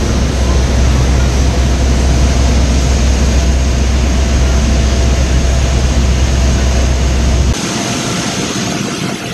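Steady airport ramp noise beside a parked airliner: a high, even turbine whine over a heavy low rumble. The rumble drops away abruptly about seven and a half seconds in.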